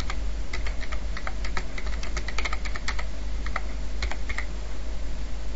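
Typing on a computer keyboard: a quick, irregular run of keystrokes that stops about four and a half seconds in, over a steady low hum.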